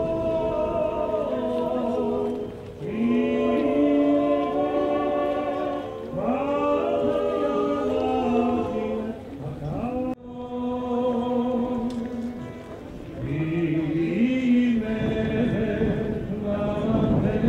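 A choir singing slow, held notes in several voices, phrase by phrase, with a brief abrupt break about ten seconds in before the singing carries on.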